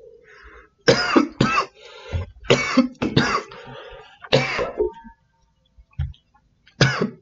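A man coughing into his elbow: a run of coughs, several in quick pairs, then a pause of about two seconds before one more cough near the end.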